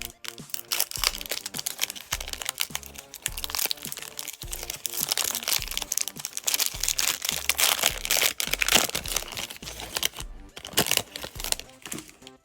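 A trading-card pack wrapper being torn open and crinkled by hand, with irregular crackling strongest in the middle, over background music.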